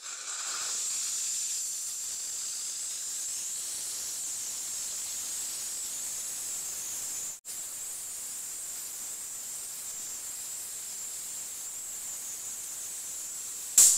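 Steam cleaner nozzle blowing a continuous hiss of steam onto a leather car seat to lift the grime. The hiss breaks off for an instant about halfway, and a sharp click comes near the end.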